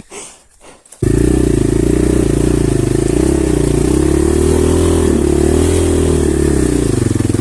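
Dirt bike's single-cylinder engine running loud, its pitch wavering up and down with the throttle as it rides. It comes in suddenly about a second in.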